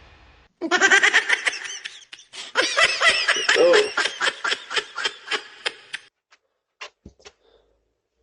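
A person laughing hard in quick repeated pulses, in two fits, a short one and then a longer one, that break off about six seconds in. A few short breaths or clicks follow.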